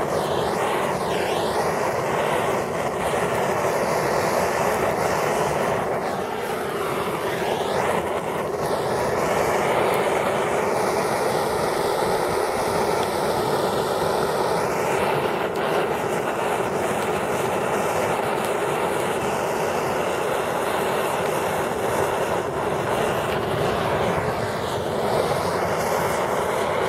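Gas torch flame rushing steadily as it is played over a burning polymer Glock magazine. The noise holds even throughout, with a slowly shifting hiss in its upper part.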